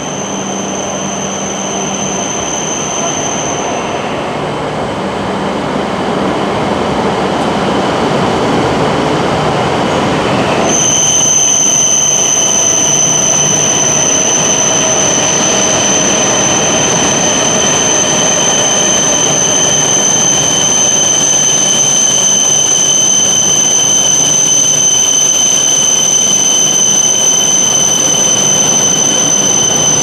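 E6-series Komachi shinkansen, coupled to an E5 Hayabusa, pulling slowly into the platform: its rolling noise grows louder over the first dozen seconds. A steady high-pitched whine sets in abruptly about a third of the way in and holds.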